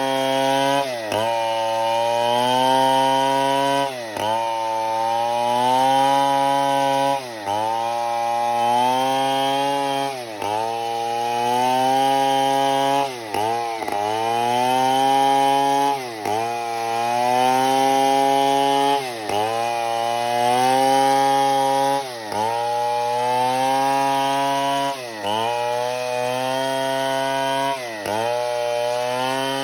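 A STIHL 070 two-stroke chainsaw running at high revs while cutting breadfruit timber. Its pitch dips sharply and recovers about every three seconds.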